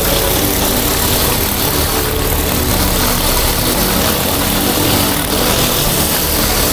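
Pressure-washer engine running steadily, with the hiss of high-pressure water spraying from a flat surface cleaner being pushed over concrete.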